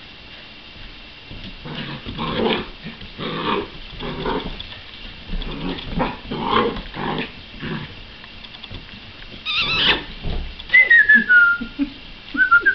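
Puppy growling and yapping in short bursts as it plays. Near the end a louder, high whistling tone slides down in pitch, and a second one follows.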